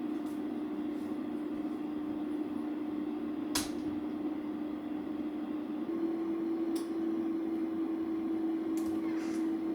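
A steady mechanical hum on one low tone that steps slightly higher about six seconds in, with a few light clicks and taps over it.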